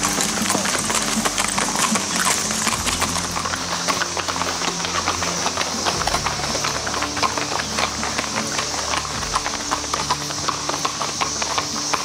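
Hooves of several ridden horses clip-clopping on the road as they walk past: a dense, uneven stream of hoofbeats. Under them runs the steady high drone of a periodical cicada chorus.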